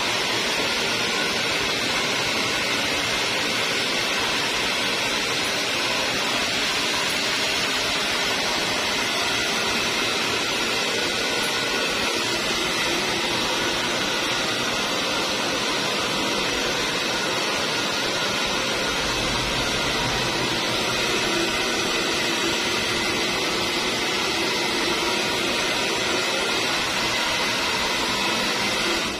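Steady, even whooshing noise with a faint high whine through it, cutting off abruptly at the end.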